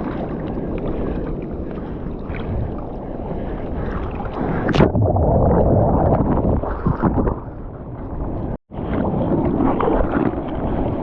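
Seawater splashing and rushing around a surfer paddling in the surf, with wind buffeting the microphone. A sharp splash or knock comes about five seconds in, and the sound cuts out for an instant near nine seconds.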